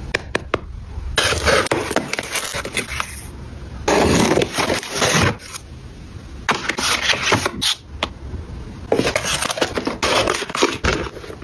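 Product packaging handled and opened close up: four bursts of rustling, with a few sharp clicks at the start.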